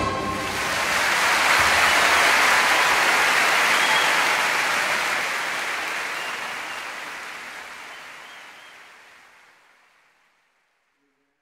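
Applause that swells about a second in and then slowly fades away, dying out near the end.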